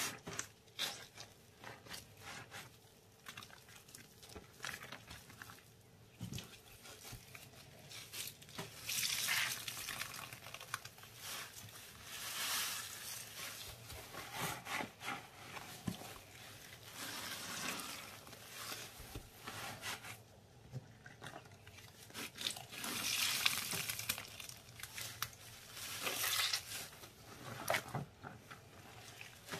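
Gloved hands squishing and kneading wet, foamy paste, with a soaked sponge pressed into it: wet squelching that comes in irregular louder spells.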